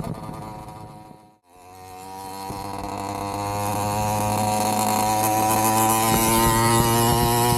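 Avenger 85 two-stroke motorized bicycle engine with a Gomax expansion pipe, buzzing at a steady speed. It fades away to nothing about a second and a half in, then a steady buzz comes back and slowly grows louder.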